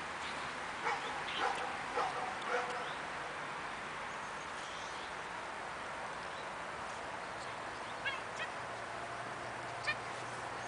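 Steady outdoor background with a few short, faint animal calls: a cluster of them between about one and three seconds in, and a couple more near the end.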